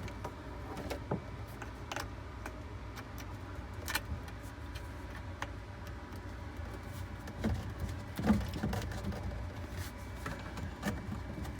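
Scattered clicks and knocks of a dishwasher drain hose and plastic fittings being handled and pushed onto a garbage disposal's inlet, with a few louder knocks about two-thirds of the way in, over a low steady hum.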